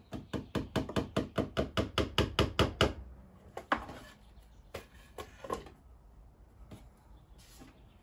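Small hammer knocking a nail or picture hook into a wall: a quick run of about fifteen light, even blows, roughly five a second, then a few scattered single knocks.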